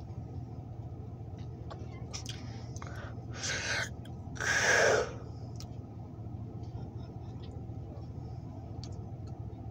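Steady low hum of the waiting passenger train's diesel locomotive idling, with two short hisses about three and a half and four and a half seconds in, the second louder.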